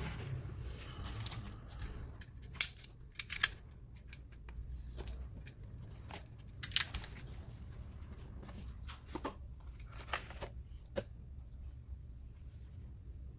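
A delivery parcel being cut and torn open by hand: scattered sharp snips and clicks with tearing and crinkling of packaging, over a steady low hum.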